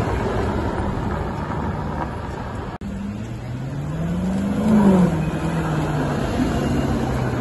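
Cars driving past on a street. About four seconds in, one car's engine revs up and drops back, then runs on steadily.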